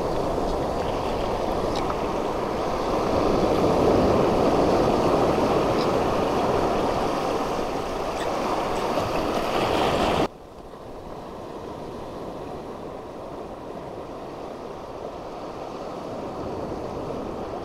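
Sea surf breaking and washing over shallow reef rocks. The sound is loud for about ten seconds, then drops suddenly to a quieter, steady wash of water.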